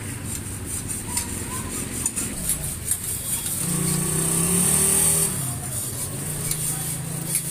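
A motor vehicle's engine passes close by, loudest a little past halfway, its pitch rising and then falling. Under it comes a steady run of short scraping strokes, like a hand saw working on the rust-seized steel fork.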